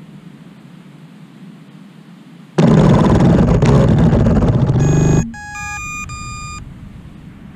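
A faint steady hiss, then about two and a half seconds in a sudden loud burst of harsh noise lasting about two and a half seconds, running into a short string of electronic beeps at different pitches that stop about four seconds before the end.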